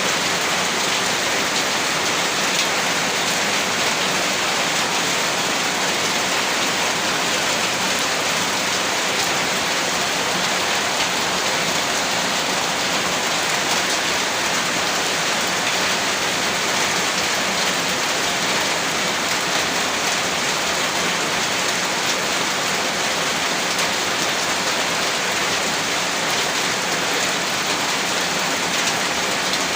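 Heavy rain falling steadily, a dense, even hiss of drops hitting a surface, with no thunder or breaks.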